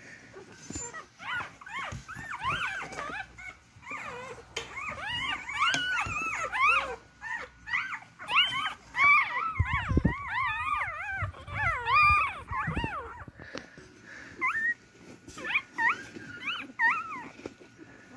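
Newborn beagle puppies whimpering and squealing with high, wavering cries as they crawl about hungry, searching for their mother's milk. Several pups cry over one another, thickest in the middle stretch. A few low thumps come near the middle.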